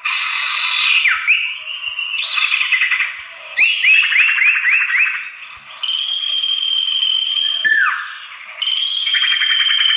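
Bird-lure recording of sirtu (common iora) calls: a quick run of about five upswept chirps, long steady whistled notes, and sharp falling notes, over a busy background of other twittering.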